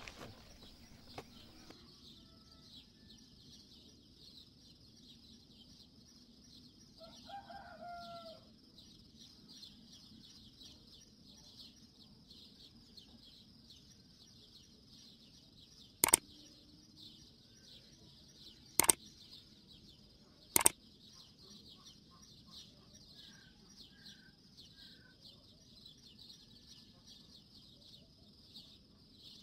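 Three sharp knocks a few seconds apart, hollow red clay bricks being knocked into place on a mud-and-brick dome stove. A rooster crows once about seven seconds in, over steady high-pitched background chirping.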